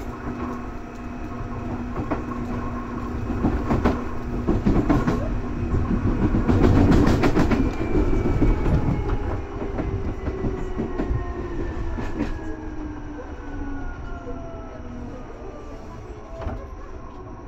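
Seibu 2000 series electric train running: wheels clattering over rail joints, loudest about seven seconds in. Then the motor tones glide steadily down in pitch and the running noise fades as the train slows.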